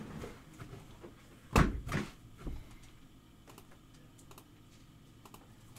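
Scattered handling noises: one solid thump about a second and a half in, a couple of softer knocks just after, then a few light clicks.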